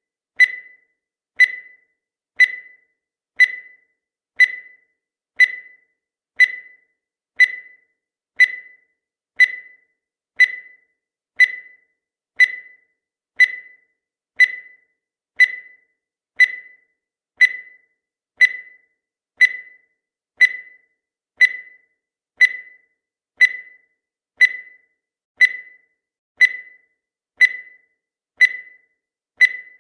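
Countdown timer sound effect: a short, sharp tick once a second, each fading quickly, keeping an even pace.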